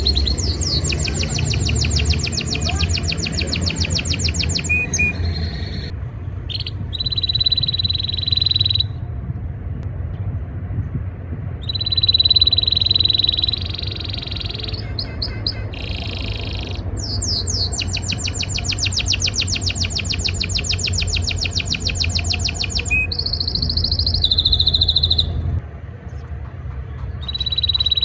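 Domestic canary song, the breeding-season courtship song of a male: phrases of very fast trills alternating with long held whistled notes, broken by short pauses. A steady low hum runs underneath.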